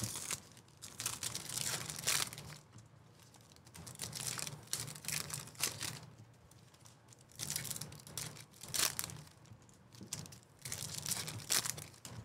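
Wrappers of Topps Chrome baseball card packs being torn open and crinkled by hand, in about four bursts of a second or two each, over a low steady hum.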